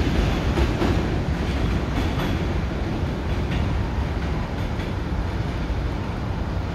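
R68 subway train pulling away, its wheels rumbling and clicking over the rail joints, a few sharp clicks in the first couple of seconds. The rumble slowly fades as the train recedes.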